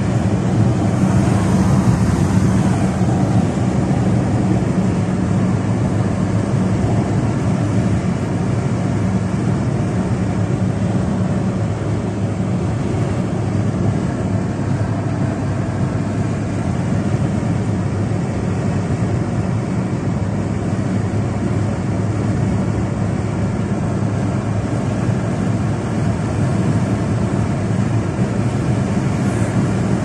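Car cabin noise at highway speed: a steady drone of engine, tyres and wind heard from inside the car.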